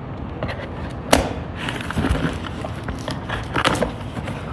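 Cardboard box being opened by hand: flaps and packing material rustling and scraping, with a sharp knock about a second in.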